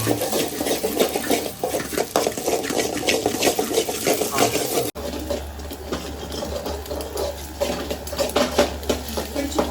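A metal utensil stirring and clinking rapidly against a cooking vessel, with scraping. About halfway through, the sound cuts sharply, and after that a steady low hum runs underneath the stirring.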